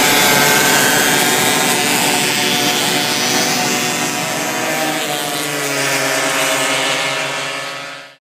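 Several racing kart engines running together, their engine notes overlapping as the karts pull away down the track; the sound fades out and stops near the end.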